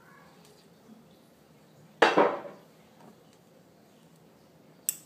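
Drink-mixing sounds at a wooden counter: one loud knock about two seconds in as something hard is set down, ringing briefly, then a sharp click near the end as a small jar's lid is twisted.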